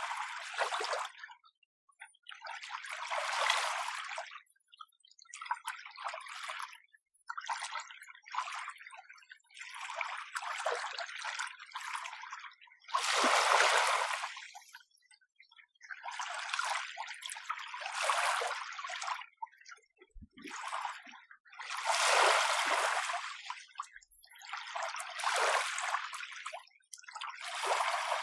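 Small, gentle waves lapping on the shore: a string of short, hissing washes of water, each a second or two long with brief lulls between. The largest come about halfway through and again two-thirds of the way in.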